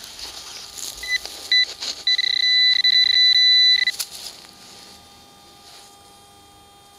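Handheld metal-detecting pinpointer probe sounding its alarm tone: two short beeps, then a steady beep for about two seconds as it finds a metal target in the dug hole. Soft rustling of dry grass and soil comes before it.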